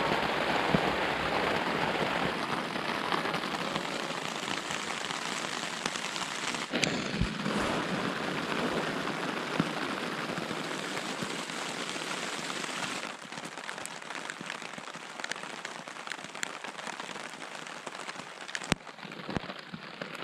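Heavy rain pouring down steadily as a dense hiss, with a few sharp taps and knocks here and there; the downpour drops suddenly in level about two-thirds of the way through.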